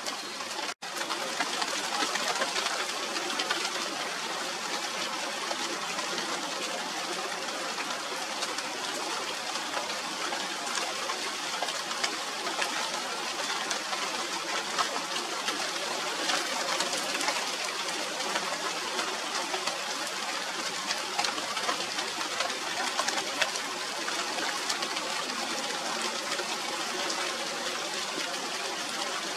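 Steady rain falling on the leaves of a china doll tree (Radermachera sinica), a dense hiss of many small drop ticks, broken by a momentary gap about a second in.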